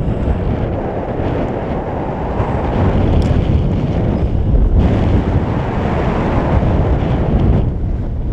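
Wind buffeting the microphone: a loud, gusty rumble with no pitch. It strengthens about five seconds in and eases again near the end.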